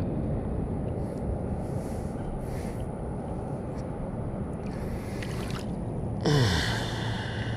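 Steady low rumble on a chest-worn microphone while a bass is held in the water and released, then a man's short sigh, falling in pitch, about six seconds in.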